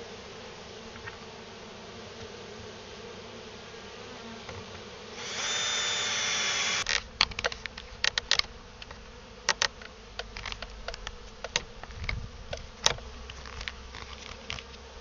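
A swarm of honeybees buzzing steadily around an open hive, swelling louder for a second or so about five seconds in. From about seven seconds, irregular sharp clicks and knocks come in over the buzzing as the wooden hive boards are handled.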